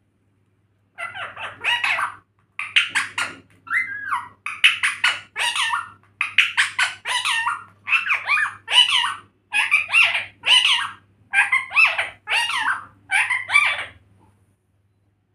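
A talking parrot vocalizing in a string of about a dozen short, squawky, speech-like bursts with gliding pitch, starting about a second in and stopping near the end.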